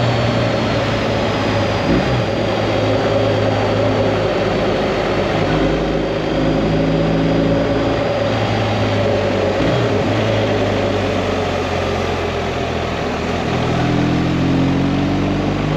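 BMW R 1250 GS boxer-twin engine running while riding at steady speed, heard through a dense rush of wind and road noise. Near the end the engine note rises as the bike speeds up.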